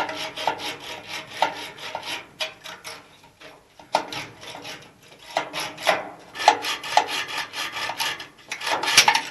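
A hand tool rasping and scraping against metal in repeated strokes with brief pauses, the metal ringing faintly on many of the strokes.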